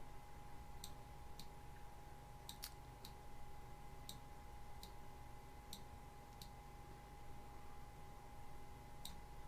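Computer mouse clicking: about ten sharp, faint clicks at irregular intervals, over a steady faint electrical hum.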